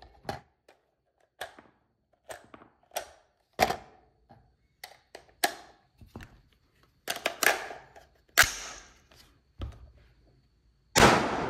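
Colt SOCOM AR-15 rifle being worked and fired: a series of separate sharp metallic clicks and knocks, a few of them loud reports, with the loudest, longest report near the end. That last round leaves the bolt closed on the empty magazine, a failure to lock open with the Colt bolt and carbine buffer.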